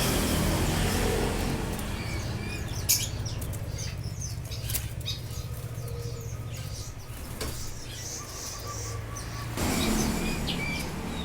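Caged shop birds fluttering their wings, with a few short chirps, over a steady low background rumble.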